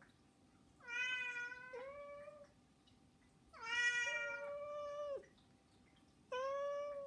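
Domestic cats meowing to beg for food: three long meows, the second one the longest and loudest.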